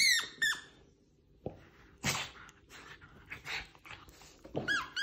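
Squeaky rubber dog ball squeaking: a few short squeaks that slide down in pitch at the start and again near the end, as a terrier rolls and presses on it. In between, rustling from the dog moving in its plush bed.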